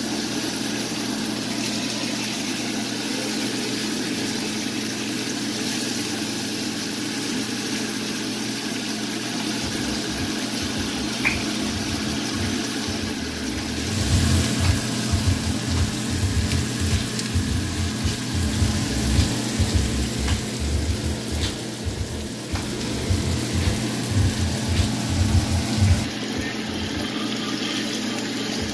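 Salmon fillets sizzling in oil in a cast-iron skillet, a steady frying hiss. From about halfway through, irregular low thuds come in over it and are the loudest sounds.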